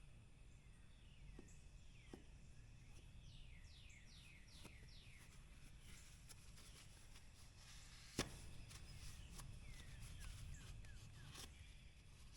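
Faint outdoor background with birds chirping in runs of short falling notes, and one sharp click about eight seconds in.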